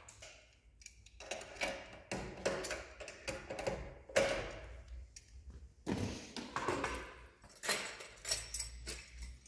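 Irregular metal clinks, knocks and rattles of hand assembly: a spanner tightening the cotton-stand rod's fixing under a sewing-machine table, and the stand's metal arms being handled.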